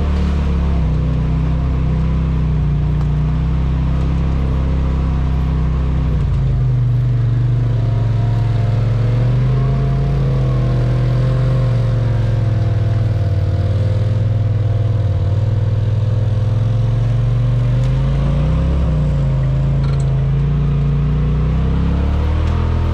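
Polaris RZR Pro XP 4 side-by-side's engine running while riding. Its note rises and falls with the throttle, dropping to a lower steady note about six seconds in and climbing again near the end.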